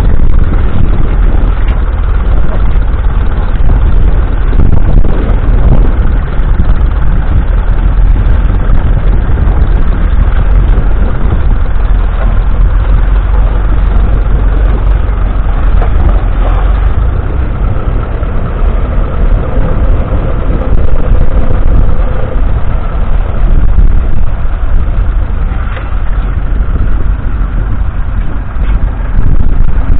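1951 Ferguson TED20's 2.1-litre four-cylinder petrol/TVO engine running steadily.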